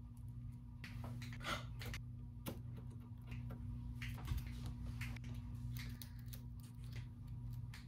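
Light clicks and taps of Christmas baubles knocking against each other as hands adjust them on the arrangement, scattered and irregular, over a steady low hum.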